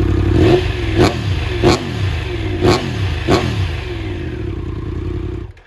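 Triumph Tiger 1200 Rally Pro's three-cylinder engine running with no muffler fitted (open header pipe). It is blipped five times, each rev dropping quickly back to idle, and the sound stops suddenly near the end.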